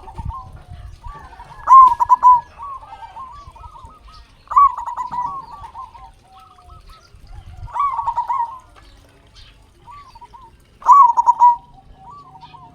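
Zebra dove (perkutut) singing its staccato cooing song. There are four loud bouts of quick, rippling coos about three seconds apart, with softer coos between them.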